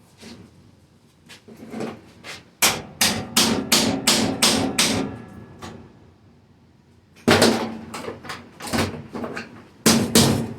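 Rapid hammer blows, about four a second, driving a screwdriver into the spot welds of a 1980 Jeep CJ7's rusted steel body panel, with the sheet metal ringing under each strike. A few light taps come first, then two runs of hard blows, one about two and a half seconds in and one after a pause of about two seconds.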